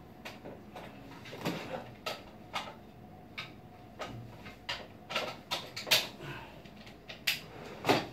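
A string of irregular clicks and knocks from small objects being handled, the loudest about six and eight seconds in.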